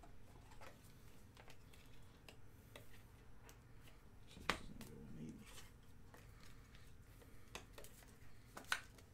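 Faint rustling and scattered small clicks of trading cards and plastic card holders being handled, with two sharper clicks, one about halfway and one near the end.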